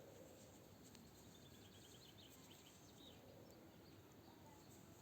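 Near silence: faint outdoor background hiss, with a distant bird giving a brief rapid trill of high notes about a second and a half in.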